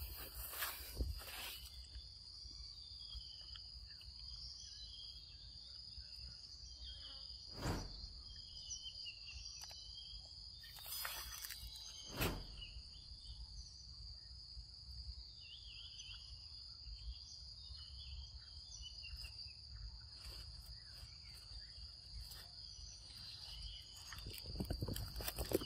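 Insects buzzing steadily at one high pitch in the forest, with scattered short bird-like chirps. A few sharp clicks or knocks break in, the loudest about twelve seconds in.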